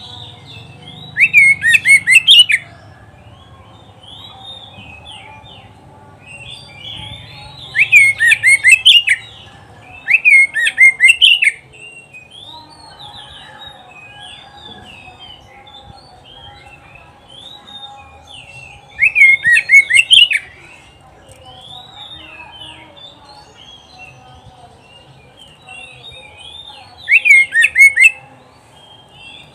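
Oriental magpie-robin singing: a running string of short, varied whistled phrases, broken five times by loud bursts of fast repeated notes, each lasting about a second and a half. A faint steady hum lies underneath.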